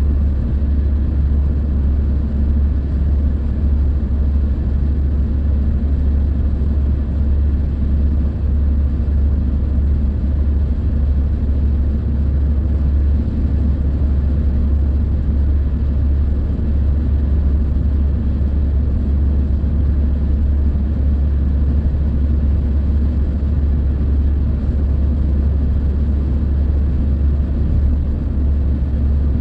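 Steady low rumble of a car cruising on a motorway, heard from inside the cabin: tyre and engine noise at an unchanging speed.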